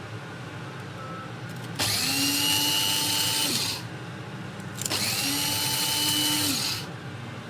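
Amazon Basics electric blade coffee grinder, grinding coarse sea salt, pulsed twice: the motor whines up to speed, runs for about two seconds and winds down, then repeats.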